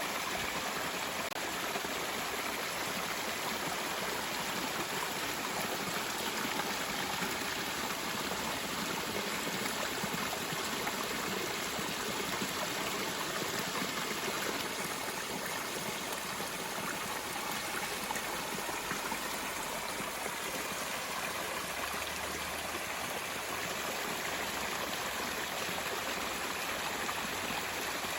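Mountain stream flowing, a steady, even rush of water.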